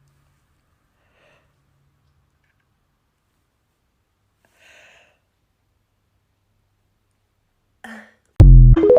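A person yawning: faint breaths, then a quick in-breath and a loud voiced yawn near the end.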